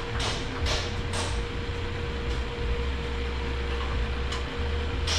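Metal transmission parts being handled and worked into the case: a few short scrapes and clicks, most of them in the first half, over a steady low hum.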